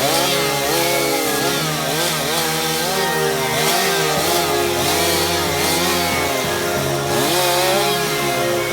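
Chainsaw revving up and down over and over, with background music playing alongside.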